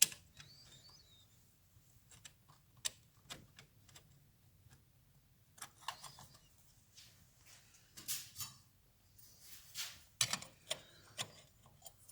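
Scattered light clicks and metallic taps of clutch plates being handled and slid into a Triumph Bonneville's clutch basket, with a few sharper knocks near the end.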